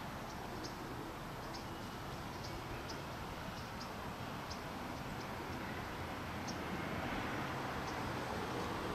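Steady outdoor background hiss with about ten faint, very short, high-pitched chips scattered irregularly through it.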